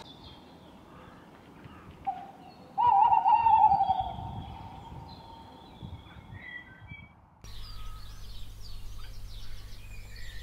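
A short note, then a single loud wavering call with a quaver that falls in pitch over about a second, from an animal outdoors at night. Later comes a steady low hum with faint high chirps.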